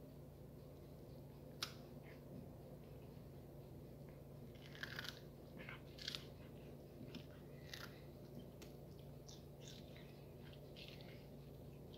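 A cat biting and chewing a piece of raw cucumber: scattered short, crisp crunches, one about a second and a half in, then a run of them from about four to eleven seconds in.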